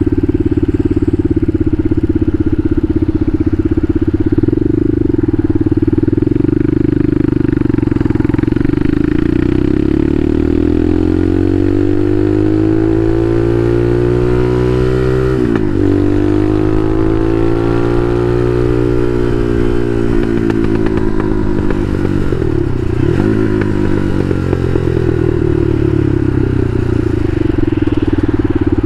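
Bashan Motomax 250 supermoto's engine running under way. It holds steady revs at first, then climbs for several seconds. About halfway through the revs drop sharply, then ease down. There is a quick dip near the end before the revs settle steady again.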